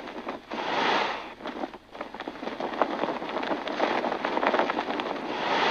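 A rushing, crackling wind sound effect for flight, a steady whoosh that swells about a second in and again near the end.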